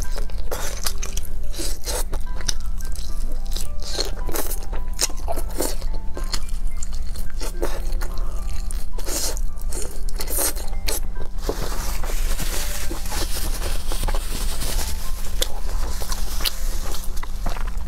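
Crunchy bites and chewing of fried, spice-coated skewered meat, close to the microphone, with many short crisp cracks; about two-thirds of the way through the chewing turns into a denser, steady crackle. Background music plays underneath.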